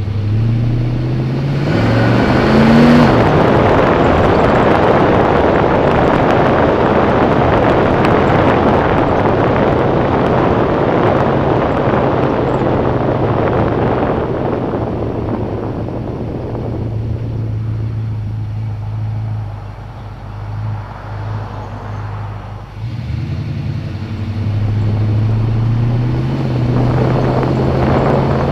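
Mercury Cougar's engine and exhaust running as the car drives, heard from the bonnet with wind rushing over the microphone. It revs up briefly about two to three seconds in, eases off and goes quieter for a few seconds past the middle, then pulls harder again near the end.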